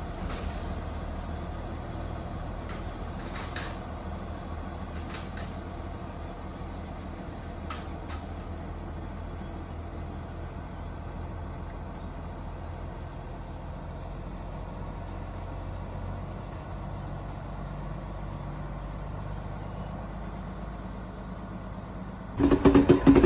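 Small diesel shunting locomotive's engine running with a steady low drone as it pulls a carriage away, with a few faint clicks. About 22 seconds in, a sudden louder rumble and clatter of the train heard from on board.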